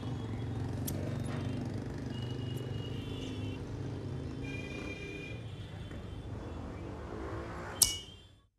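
Steady background of distant traffic with a low rumble and a few faint high tones. Near the end, a single sharp metallic snip of scissors closing, after which the sound cuts out.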